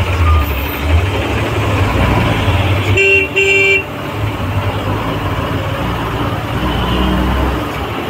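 Low rumble of a city bus's engine and road noise heard inside the cabin while it drives in traffic, with a vehicle horn giving two short toots about three seconds in.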